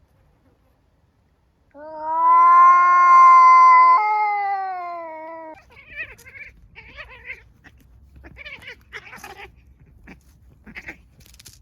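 A cat yowling once in a long, drawn-out call, the kind of threatening caterwaul given in a standoff between cats. The pitch holds steady, steps up about halfway through, then sinks until it stops. It is followed by scattered short, rough sounds over a low rumble.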